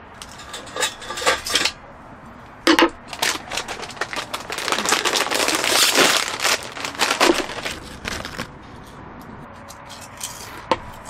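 Plastic snack bag crinkling and rustling as it is pulled open, after a few short clicks and a knock; one more click near the end.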